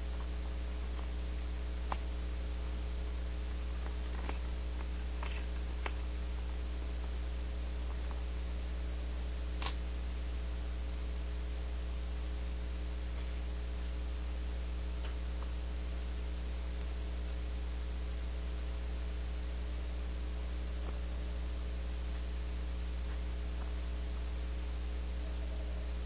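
Steady electrical mains hum on the nest-box camera's audio, with a few faint clicks and scratches scattered through it, the clearest about ten seconds in.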